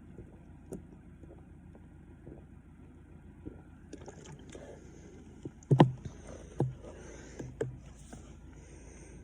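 A person chugging carbonated diet soda from a 2-litre bottle: quiet gulping, then three louder swallows about six, six and a half and seven and a half seconds in, the first the loudest, over a faint hiss.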